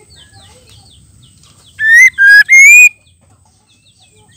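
Female white-rumped shama giving three loud whistled calls in quick succession about two seconds in. The last call rises in pitch and is the longest. Faint chirps of other small birds come before and after.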